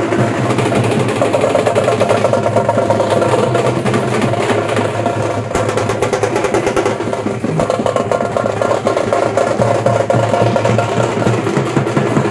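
Fast, continuous teenmaar drumming from a street band, the strokes running together in quick rolls.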